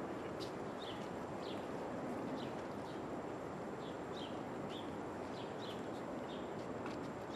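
Outdoor ambience: a steady hum of background noise, with short, high, falling chirps about twice a second and a few faint clicks.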